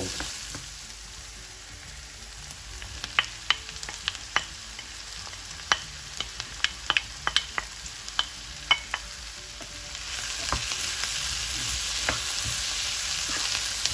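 Onions, garlic and peppers frying in olive oil in a pan, with a run of sharp clicks from a utensil stirring against the pan in the middle. The sizzle grows louder about ten seconds in.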